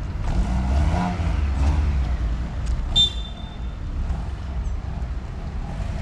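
Low, steady rumble of a motor vehicle, with a brief high whistle-like chirp about three seconds in.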